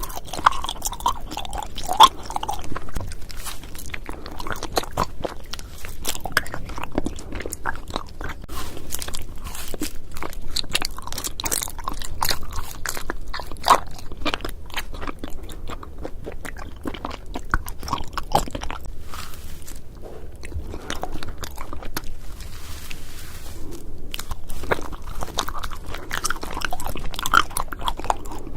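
Close-miked eating of cotton candy and honey jelly: a steady run of irregular biting, crunching and chewing clicks, with one louder bite about two seconds in.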